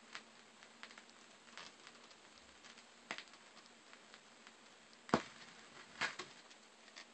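Vinyl LP surface noise under the stylus after the last track of the side has ended: faint hiss with scattered crackles and pops, and a few louder clicks in the second half.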